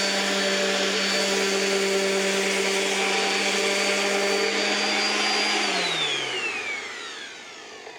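Small electric finishing sander running steadily while sanding wood with 80-grit paper. About six seconds in it is switched off, and its whine falls in pitch and fades as the motor winds down.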